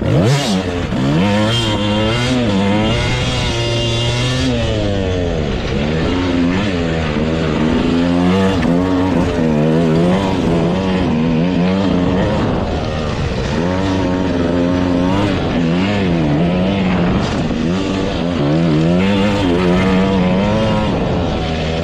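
Dirt bike engine ridden from the saddle, revving up and dropping back again and again as the rider accelerates and eases off, its pitch rising and falling every second or two.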